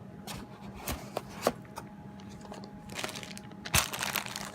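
Handling noise from unpacked drone parts and packaging: a few sharp clicks and knocks, then a burst of crinkling rustle about three seconds in.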